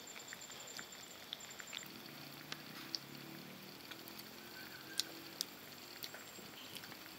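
Chopsticks clicking against a bowl and food several times during eating, the sharpest clicks about 3 and 5 seconds in. A faint high, pulsing chirr runs underneath, and a low hum sounds through the middle.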